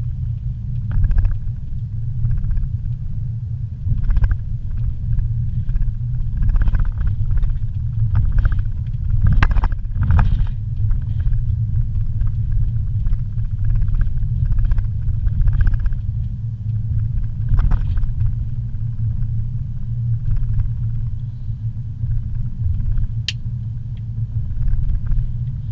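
Inside a car while driving: a steady low rumble of engine and road noise, with a few brief knocks and clicks along the way.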